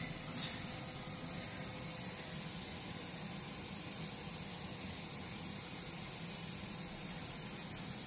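Steady whooshing hiss of air-purifier fans running, with a couple of faint, brief high chirps about half a second in.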